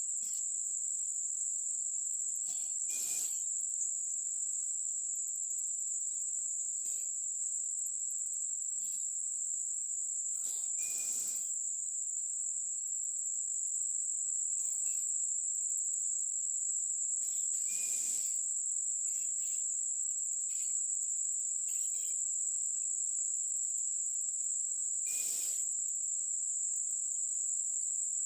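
Insects singing in a steady, unbroken high-pitched chorus, with a few short noises breaking in about every seven seconds.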